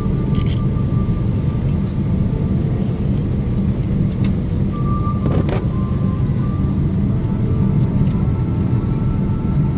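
Steady cabin noise of a Boeing 777-300 airliner landing, heard from a seat near the wing: an even low rumble of the jet engines and rushing air, with a few faint clicks and a brief faint tone about halfway through.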